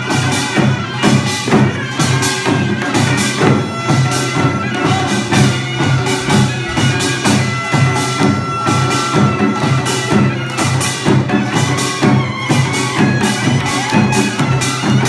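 Korean traditional instrumental music: a reed wind instrument holds sustained notes over steady rhythmic drumming.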